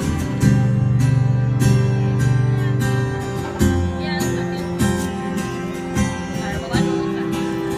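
Live band music with guitar chords over sustained bass notes and a drum hit every second or so.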